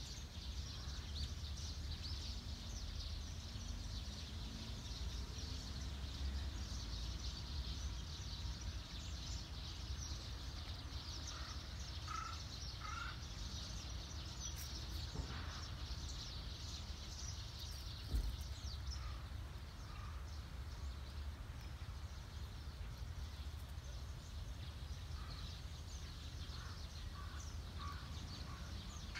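Outdoor ambience of many small birds chirping and twittering, with a few clearer short calls, over a steady low rumble. One brief thump comes a little past the middle.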